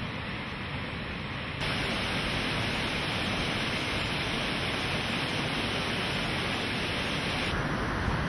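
Potomac River whitewater rushing over rocks and falls: a steady, dense rush of water noise that steps louder about a second and a half in.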